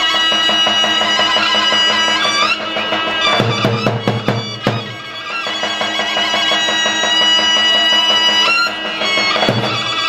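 Traditional Albanian folk music: a reedy wind instrument plays an ornamented melody over a steady drone. A large drum beats underneath, heaviest about three and a half to five seconds in.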